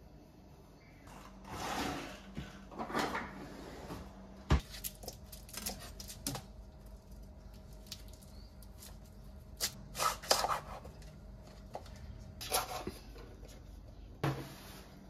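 Household handling sounds: several short rustling or brushing noises and light clicks, with one sharp knock about four and a half seconds in, over a faint steady hum.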